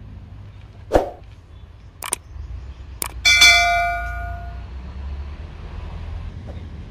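Subscribe-button animation sound effect: a knock, two sharp clicks, then a bright bell ding that rings out and fades over about a second. A steady low rumble runs underneath.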